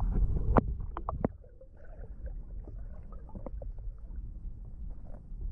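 Muffled underwater audio from a GoPro: a steady low water rumble, with a few sharp clicks and knocks in the first second or so.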